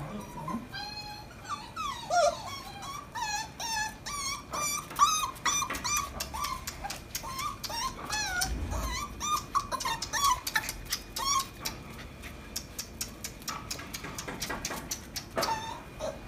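Corgi puppy whimpering and whining: a long run of short, high, wavering cries, coming thick and fast for about twelve seconds, then a pause and a few more near the end, with scattered sharp clicks among them.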